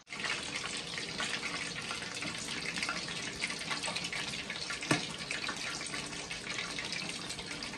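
Pork hock deep-frying in hot oil in an aluminium wok during its second fry to crisp the skin: a steady, dense sizzle and bubbling, with one sharp click about five seconds in.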